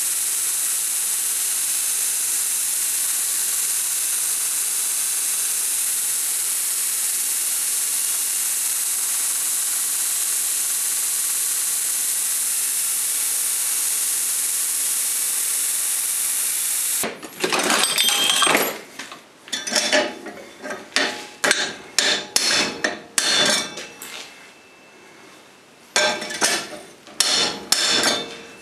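Belt grinder grinding a steel dagger blade: a steady loud hiss that cuts off suddenly about 17 seconds in. Then a run of hammer blows on steel at a vise, about two a second, pausing briefly before a last handful of strikes, as a guard is driven onto the dagger.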